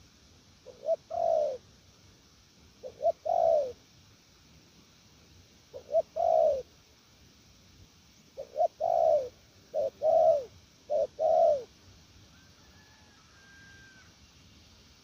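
Spotted dove cooing in repeated phrases, six in all. Each phrase is one or two short notes running into a longer coo that falls in pitch.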